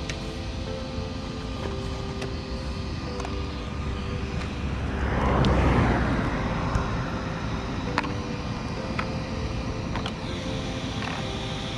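Background music with held notes that change in steps. About five seconds in, a rushing noise swells and fades over about two seconds.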